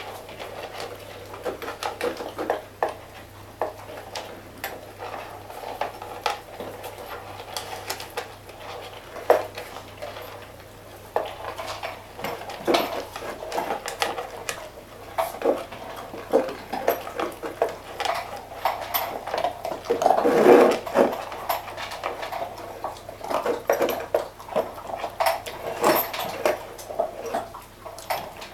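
A dog eating greedily from food bowls: a metal bowl clinks, knocks and scrapes in an irregular run, with a louder cluster about two-thirds of the way through.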